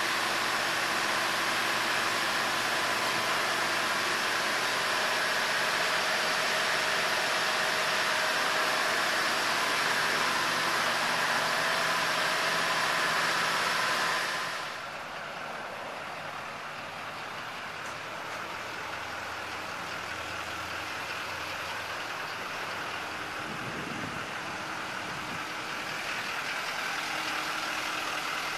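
Steady machine noise, a hiss with a faint hum underneath, that drops suddenly to a quieter, lower hum about halfway through.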